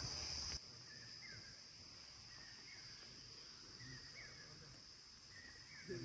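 Faint outdoor ambience: a steady high insect drone, with a bird giving short chirps about once a second. A louder stretch of the same drone with a low rumble cuts off abruptly about half a second in.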